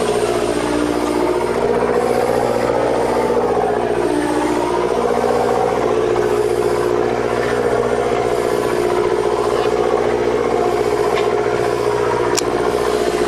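Fishing boat's engine running steadily, a constant drone of several held tones, with a single sharp click near the end.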